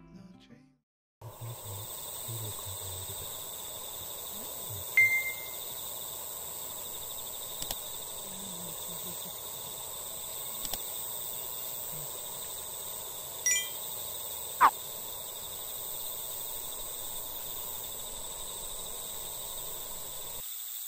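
Evening outdoor ambience: insects trilling steadily in high, even bands. A few brief, high ringing notes sound over it, the loudest about five seconds and about fifteen seconds in.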